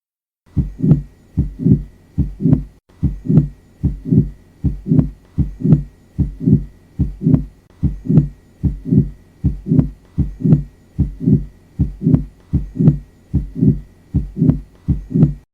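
Recorded heart sounds: a regular lub-dub heartbeat, a little over one beat a second, starting about half a second in.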